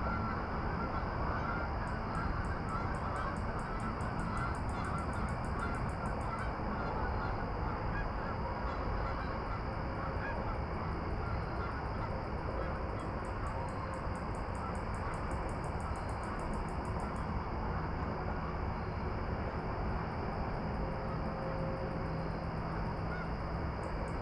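Steady outdoor evening ambience: an even low rushing noise, with two stretches of fast, high pulsing chirps lasting a few seconds each, starting again near the end.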